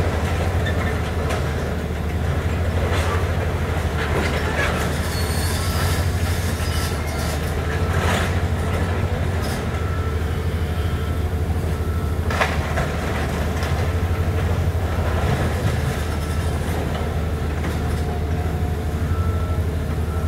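Hitachi excavator's diesel engine running steadily while its bucket crunches and scrapes a pile of twisted steel roofing, with a couple of sharper metal clanks and short metallic squeals.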